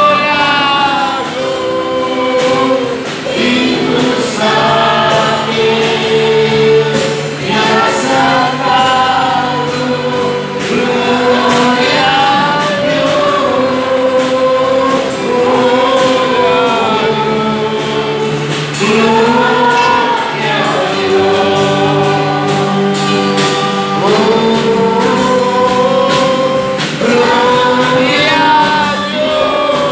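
Congregation singing a worship song together, several voices in unison over a musical accompaniment with steady held low notes, the melody rising and falling in long sung phrases.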